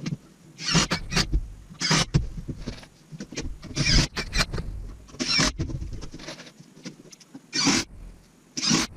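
A wooden shelf unit being shoved into position: six short scrapes about a second apart, with knocks and rumbling in between.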